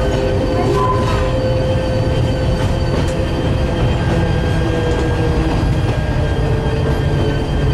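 Metre-gauge train of the Genova–Casella railway running: a steady low rumble with thin, high squealing tones from the wheels held over it.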